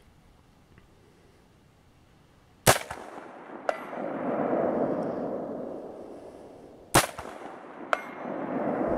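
Two shots from an AR-15 rifle in 5.56/.223, about four seconds apart. Each is followed about a second later by the faint ping of the bullet striking a steel plate 200 yards downrange, then by a long rolling echo.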